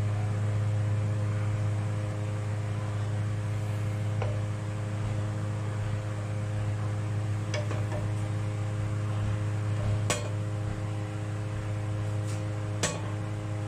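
Kitchen exhaust fan running with a steady, noisy hum. Four short clicks of a spatula against the cooking pot are heard during stirring.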